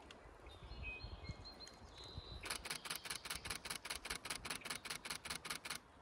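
Camera shutter firing in a rapid continuous burst, about six clicks a second for a little over three seconds, stopping suddenly near the end.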